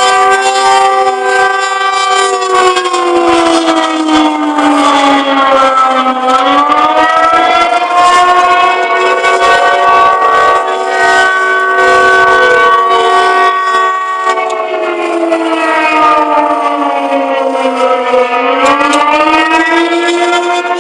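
Hand-cranked Secomak air-raid siren wailing. Its pitch slowly winds down and back up twice, holding steady in between, giving the rising-and-falling warning of an air raid.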